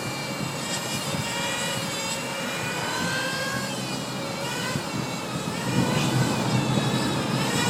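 Hyper 7 nitro RC buggy's small engine running at high revs, a high whine that rises and falls in pitch as the throttle changes, over the steady low rumble of the road.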